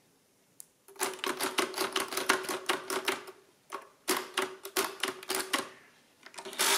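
Precisa 117 pinwheel calculator: the ten-key keyboard clacks in two quick runs of key presses as a number is entered, with the input carriage stepping along under a metallic ringing. Near the end comes a louder clatter as the crank starts to turn.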